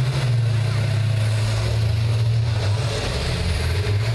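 Several school bus engines running in a steady low drone as the buses manoeuvre in a demolition derby.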